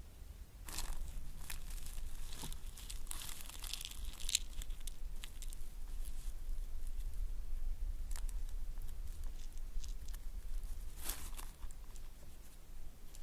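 Irregular rustling and crackling with scattered sharp snaps, densest in the first few seconds and again near the end, over a steady low rumble.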